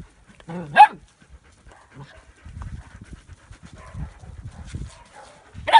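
Young dogs playing: one sharp bark about a second in and another at the very end, with faint scuffling between.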